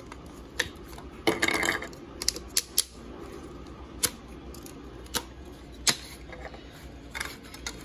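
Hard plastic parts of a Power Rangers Dino Fury Zord toy clicking and clacking as it is flipped around and reconfigured by hand: a scattering of sharp clicks, with a short rattle about a second in.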